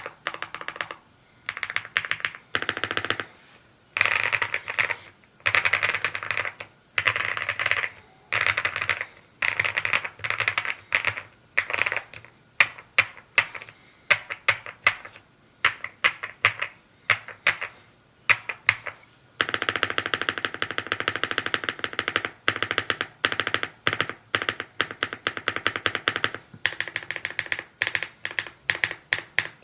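Typing on an Evo80 mechanical keyboard: rapid key presses in bursts of a second or two with short pauses between them, then a longer unbroken run of fast typing in the second half.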